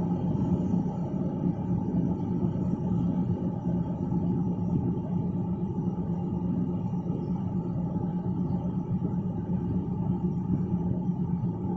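SRT diesel railcar's underfloor engine idling while the train stands at the platform: a steady rumble with a constant low hum.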